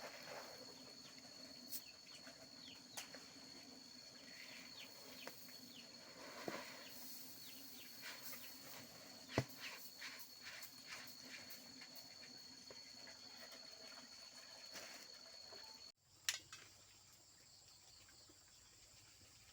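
Faint outdoor ambience: a steady high-pitched insect drone with short bird chirps and scattered sharp clicks, the loudest click about halfway through. The drone cuts off abruptly near the end, leaving quieter background.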